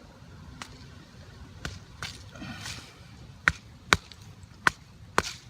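A series of sharp taps and clicks from a small hard object being handled and tested, with four loud ones in the second half, the last two about half a second apart.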